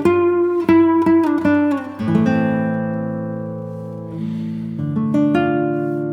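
Background music: acoustic guitar, a run of plucked notes and then slower strummed chords left to ring out.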